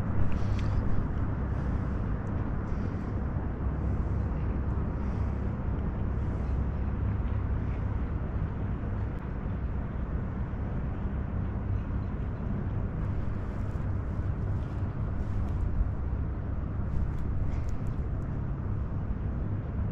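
Steady low outdoor rumble, with faint light ticks now and then.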